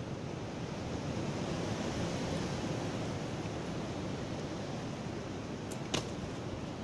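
Steady rushing noise, with one sharp click about six seconds in.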